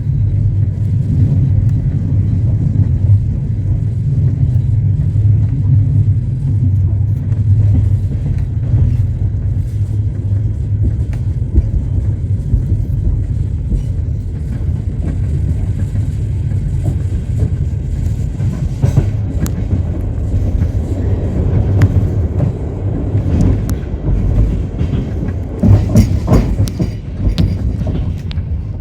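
Passenger train running on the rails: a steady low rumble of the wheels, with sharper clacks and knocks in the second half.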